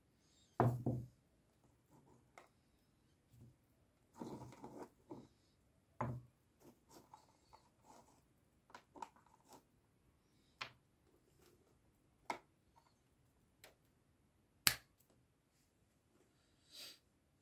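Small metal faucet parts handled and set down on a wooden tabletop: scattered light clicks and knocks, with a few louder knocks.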